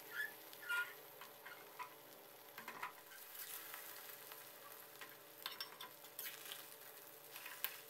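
Beaten eggs frying faintly in a metal wok, with a metal spatula scraping and tapping against the wok now and then as the omelette is pushed and cut.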